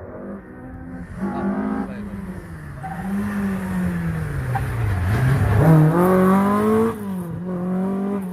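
Ford Escort Mk2 rally car's engine on a stage run, getting louder as it comes closer. The revs sag, then climb steeply under hard acceleration about halfway through, loudest just after. The sound cuts back suddenly near the end as the driver lifts or changes gear, then holds steady.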